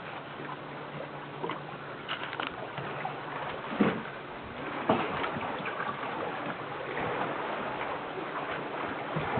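Lake water lapping and splashing, with a few short splashes and a faint steady low hum underneath.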